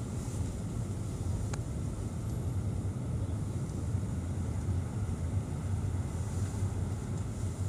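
Steady low rumble of a car's engine and tyres, heard from inside the cabin with the driver's window down, as the car rolls slowly forward.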